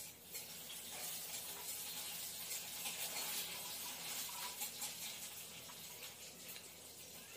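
Fingers mixing rice with gravy on a plate: a faint, wet rustle with small clicks, loudest around the middle and easing off near the end.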